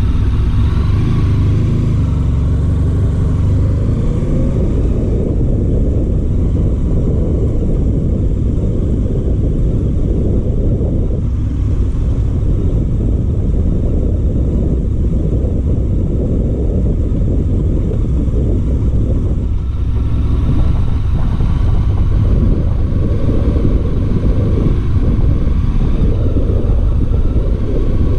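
Honda VFR1200 motorcycle's V4 engine running at low speed, a steady low rumble whose pitch climbs briefly in the first few seconds.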